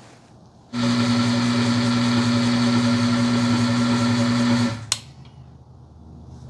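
Electric motor of a bench oil film-strength tester running, its spinning ring grinding against a test bearing lubricated with full synthetic 5W-30 motor oil: a loud steady hum and whine with a wide hiss. It starts about a second in, stops after about four seconds, and a single sharp click follows.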